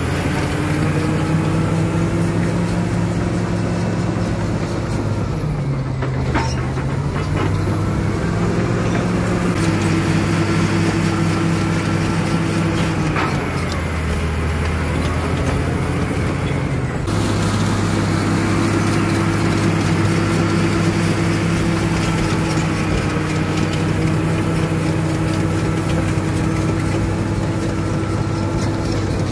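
Caterpillar crawler bulldozer's diesel engine running hard while it works, its pitch dipping and recovering twice.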